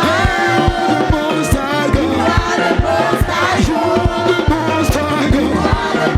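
Gospel praise-and-worship music with singing over drums and bass guitar, driven by a steady, fast beat.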